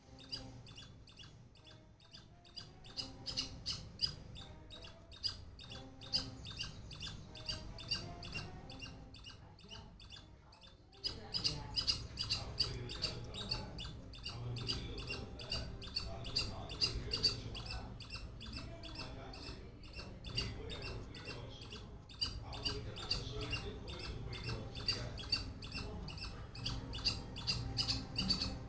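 Squirrel calling with a long run of short, high chirps, about three or four a second.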